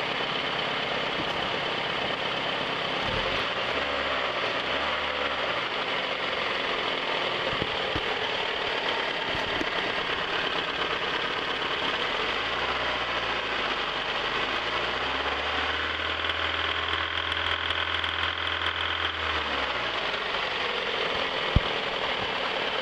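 1997 Toyota RAV4's four-cylinder engine idling roughly, its low drone shifting unevenly. The owner is pretty sure the cylinder 2 plug isn't firing at all.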